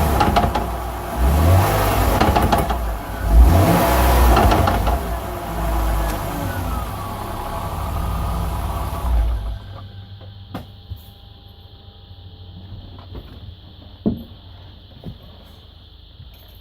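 BMW E46 320 coupe running with its engine pitch rising and falling as it revs and drives, until the engine and road sound stops abruptly about nine seconds in. After that only a few isolated clicks remain, one sharper knock among them.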